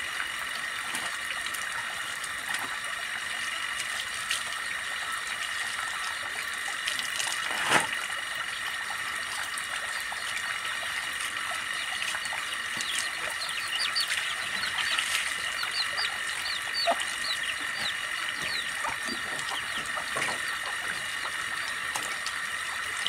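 Water splashing as wet clothes are rinsed and wrung out over a plastic tub at a hand pump. Under it runs a steady high-pitched drone, with a string of bird chirps in the middle and one sharp knock about eight seconds in.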